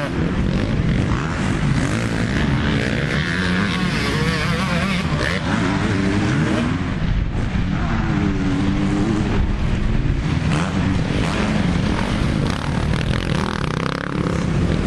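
Motocross dirt bike engines revving hard and easing off, the pitch rising and falling several times over a steady low engine drone.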